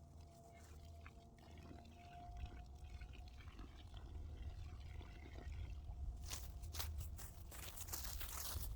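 Water being poured from a container into a freshly dug planting hole, faint at first and louder in the last few seconds.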